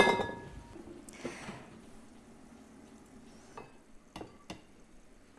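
A copper pot lid set down on a wooden board with a sharp metallic clang that rings and dies away over about a second. Then a few faint knocks as the copper pot is lifted and tipped over a ceramic dish.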